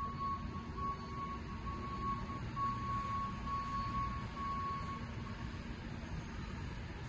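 Heavy machine's engine running with a low rumble, and a high-pitched warning beep tone that sounds with short breaks and stops about five seconds in.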